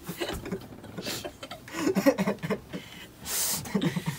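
People laughing, with indistinct voices and a short breathy hiss a little after three seconds in.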